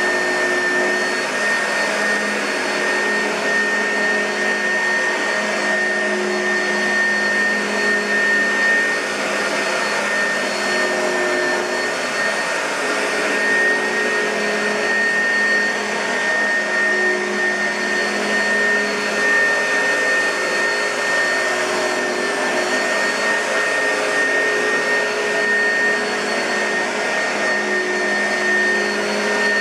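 2006 Oreck XL2 upright vacuum cleaner running steadily, its motor giving a constant whine with a high steady tone over the fan rush.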